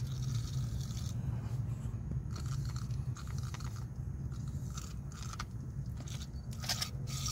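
Aerosol can of PB Blaster penetrating oil sprayed through its straw in several short hissing bursts, soaking rusted strut bolts before they are broken loose. A steady low hum runs underneath.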